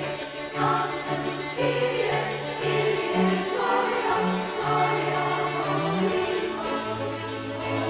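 Background music: held notes over a bass line that steps from note to note about once a second.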